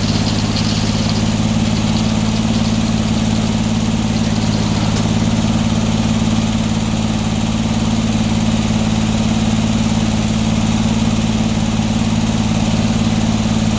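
Sawmill engine running at a steady speed, an even low drone with no change in pitch or level.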